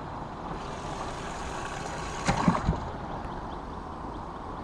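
Three or four quick knocks and thumps in an aluminium fishing boat a little over two seconds in, over steady outdoor background noise.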